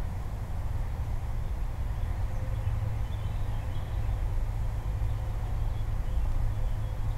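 Distant Airbus A319 jet engines on approach: a steady low rumble with a faint hum, growing louder toward the end. A few faint bird chirps.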